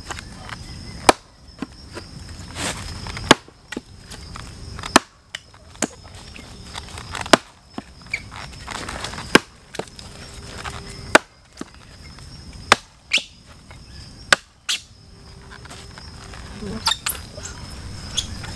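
Wenzel hatchet chopping into a log: a series of sharp, loud chops, roughly one every second or two at an uneven pace. A steady high insect drone carries on underneath.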